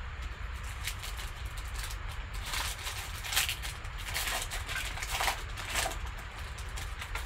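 Foil trading-card pack being crinkled and torn open by hand, a string of irregular crackly rustles starting about two and a half seconds in, over a low steady hum.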